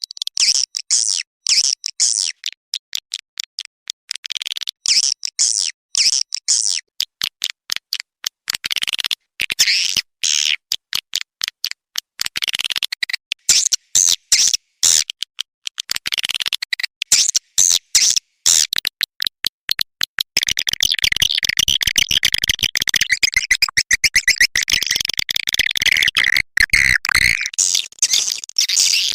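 Recorded edible-nest swiftlet call, a lure track of the kind played to draw swiftlets into a swiftlet house. Rapid high chirps and clicks come in quick stuttering bursts, then give way about two-thirds through to continuous dense twittering.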